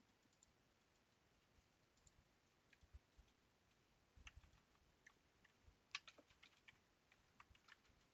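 Faint computer keyboard typing and clicks, a few scattered keystrokes at first, then a quicker run of them in the second half.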